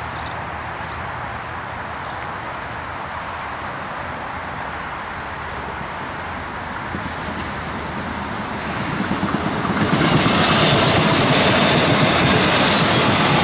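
A Melbourne Metro electric suburban train approaching down the line and then passing close by: its sound builds from about eight seconds in and is loud and steady from about ten seconds in.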